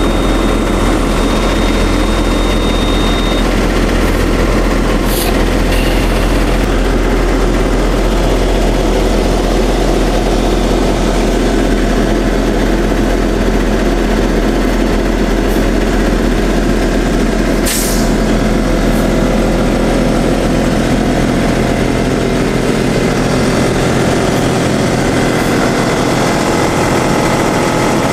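Tecnoma Laser self-propelled sprayer's engine running steadily while its hydraulic suspension raises the machine to a higher ground clearance. A thin high tone sounds for the first few seconds, and there is a single sharp click about two-thirds of the way through.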